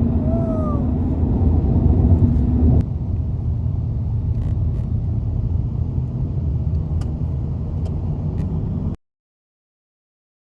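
Steady low rumbling noise with a brief rising-then-falling squeak about half a second in. Its character changes at a sudden cut just under three seconds in, and it stops dead about a second and a half before the end.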